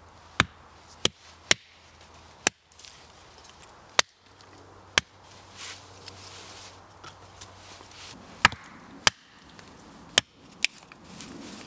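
Small hatchet splitting kindling sticks on a wooden chopping block: about nine sharp chops at an irregular pace, with a pause of a few seconds between the fifth and sixth.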